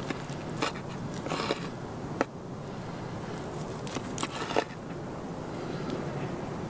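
A knife slicing through a piece of cooked meat on a wooden board, with short scrapes and a sharp tap of the blade against the board, several times in the first five seconds.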